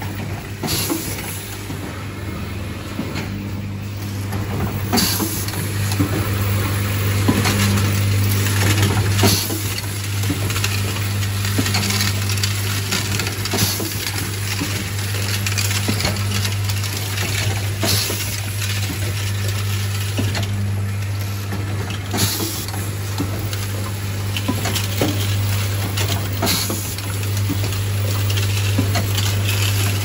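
Automatic assembly machine for plastic corner connectors and screws running: a steady low hum under constant clicking and clatter of small plastic parts. Short hisses of compressed air come about every four seconds as the pneumatic stations cycle.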